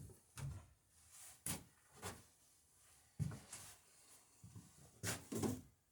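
A string of irregular knocks and clunks, about seven in all, spaced unevenly, from things being handled and moved about in a small workshop.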